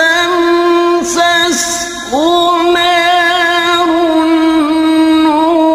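A man's voice reciting the Quran in the melodic tilawah style, holding long, steady notes with short ornamental slides between them.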